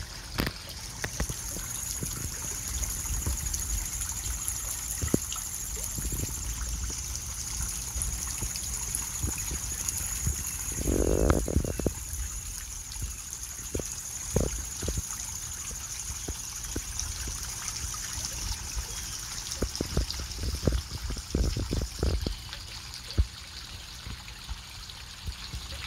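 Garden pond fountain running: a thin jet of water from the pump's nozzle falls back into the pond with a steady splashing trickle. The pump has just been cleared of debris. A brief louder sound comes about 11 seconds in.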